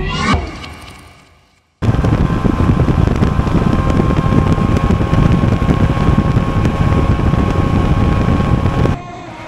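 Bass boat running at speed across open water: dense engine and hull noise with heavy wind buffeting the microphone and a faint steady whine. It cuts in sharply about two seconds in, after a sound fading out and a brief gap, and stops abruptly near the end.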